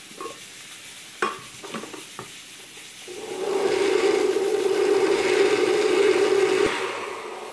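A few knocks as the lid goes onto a glass blender jar, then about three seconds in the blender motor starts and runs steadily for about four seconds, blending canned sweet corn with cream and cornstarch, before it winds down near the end.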